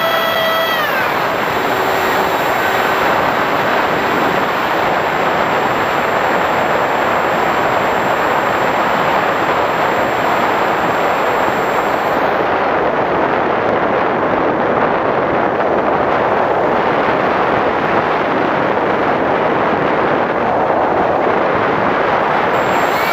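RC model A-10 jet in flight, heard from its onboard camera: a thin motor whine drops in pitch and fades about a second in, leaving a steady rushing of air and fan noise, and the whine climbs back in just at the end.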